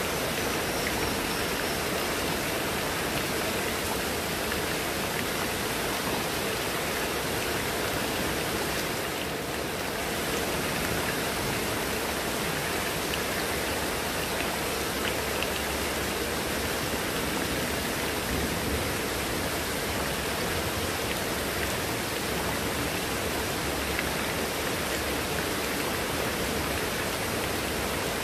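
Heavy rain falling steadily on foliage and hard surfaces, with water pouring off a roof edge: a dense, even hiss that eases slightly about nine seconds in.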